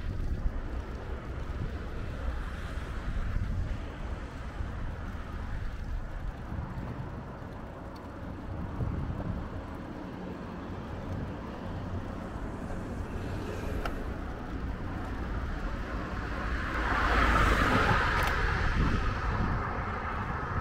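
Wind rumbling on the microphone of a handlebar-mounted camera on a moving bicycle. About three quarters of the way through, a louder rushing sound swells up and fades within a few seconds.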